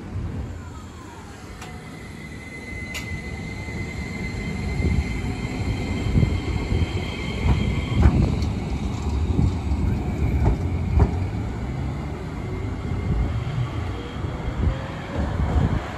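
Iyo Railway Moha 5000 low-floor tram pulling away and passing close by. Its Toshiba IGBT VVVF inverter gives a steady high whine, then a faint rising tone near the end as it moves off. Steel wheels rumble on the street track, with a couple of sharp knocks over rail joints as it passes.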